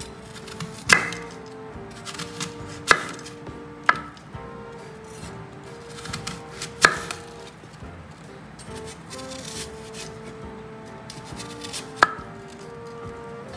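Knife chopping on a cutting board: about five sharp, irregularly spaced strikes with softer cutting knocks between, over soft background music of held notes.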